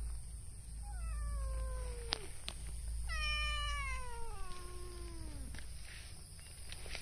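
Cat meowing: two drawn-out meows that slide down in pitch. The first comes about a second in; the second, longer and louder, comes about three seconds in.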